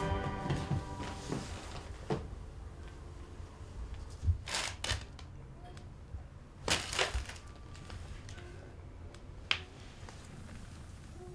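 Short crunching and crinkling noises in a few clusters, the loudest about four and seven seconds in, with a single sharp click near the end, over quiet room tone.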